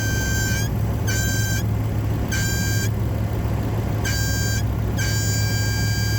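Car engine idling with a steady low drone, over which a high-pitched whistle keeps cutting out and coming back, breaking off four times: a sign of a possible vacuum leak.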